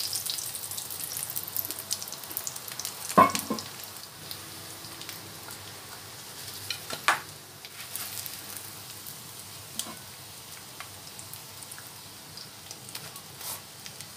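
Sardine omelette patties sizzling in oil in a nonstick frying pan. A slotted spatula scrapes and knocks against the pan as the patties are lifted, sharpest about three seconds in and again about seven seconds in.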